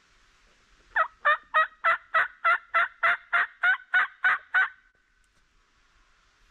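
A run of about thirteen hen turkey yelps, loud and evenly spaced at about three a second, each note breaking from a higher to a lower pitch, stopping near the middle.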